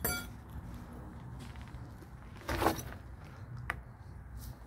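Hands rummaging through burnt ash and scrap metal debris: a short metallic clink at the start, a loud crunching scrape about two and a half seconds in, and a sharp click a second later.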